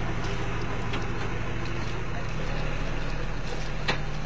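Engine of a tracked heavy machine running steadily as its crawler track works through thick mud, with a single sharp click near the end.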